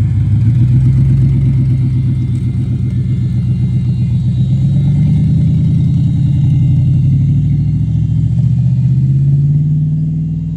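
Off-road pickup truck engines running hard under load as the trucks pull away over sandy ground. A loud, steady engine note that climbs slightly in pitch.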